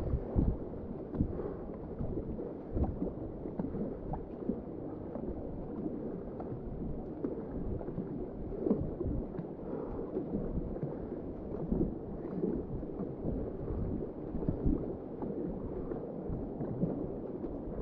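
White Salmon River whitewater rushing and gurgling around a kayak, with irregular splashes throughout.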